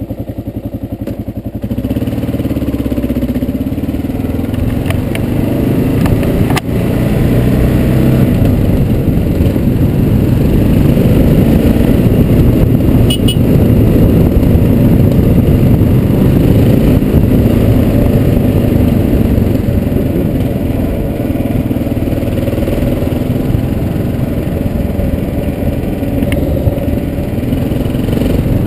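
Kawasaki KLR650's single-cylinder four-stroke engine running, with a steady even pulse at first, then louder from about two seconds in and holding steady while the motorcycle rides along.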